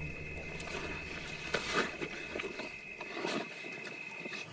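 Spotted hyenas feeding at a carcass at night, giving short growls and calls, with a steady high thin tone underneath.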